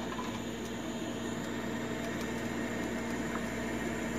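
Steady low hum with an even hiss of background noise.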